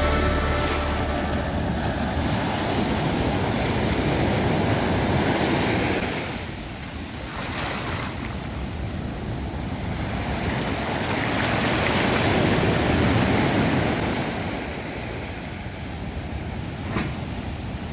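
Sea waves breaking and washing up the beach, the surf swelling and ebbing in slow surges: strong at first, easing a few seconds in, building again midway and subsiding near the end.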